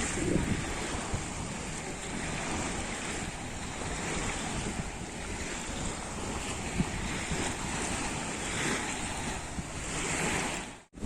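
Sea surf washing steadily onto the shore in gentle swells, with wind rumbling on the microphone. The sound cuts out abruptly for a moment near the end.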